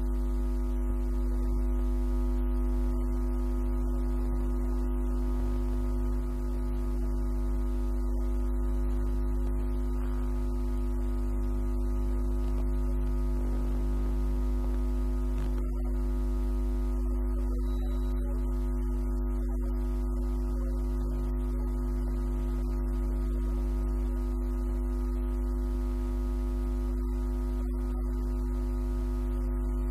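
A steady drone of several held low tones, played back over a loudspeaker from a multitrack audio session.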